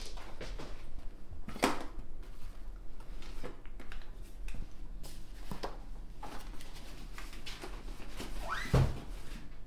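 Someone handling an office chair and things on a desk: scattered short knocks and rustles over a steady low hum. Near the end a short creak rising in pitch comes just before a heavy thump.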